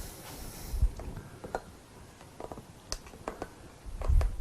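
Light clicks and taps of hands working over an MGB engine block as the main bearing shells are oiled, with two soft low thumps, about a second in and near the end.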